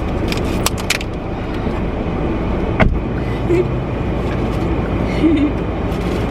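Steady low rumble of a car's interior, with a few short clicks near the start and a sharper click about three seconds in.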